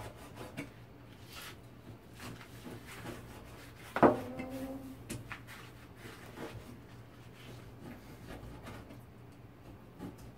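A blunt Chinese cleaver slicing pork belly on a plastic cutting board: soft, irregular knocks of the blade meeting the board, with one sharp, louder knock about four seconds in that rings briefly.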